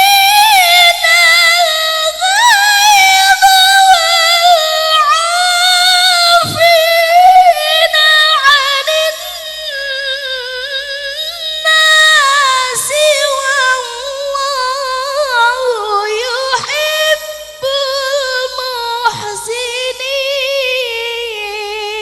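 A qari recites the Quran in a long, unbroken, ornamented melodic phrase whose pitch slowly falls from start to end.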